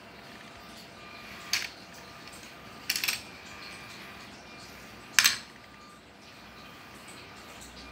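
Hard plastic LEGO parts of a color-sorting robot clacking as it works: three sharp clacks about a second and a half apart, the middle one a short rattle and the last the loudest.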